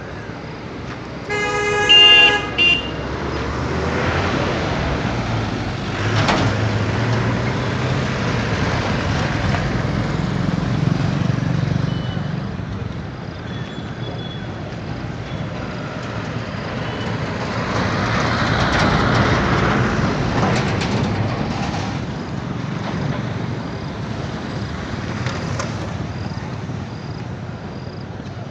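A vehicle horn toots twice near the start, the loudest sound. Then comes steady street traffic noise with engine rumble that swells twice as vehicles pass.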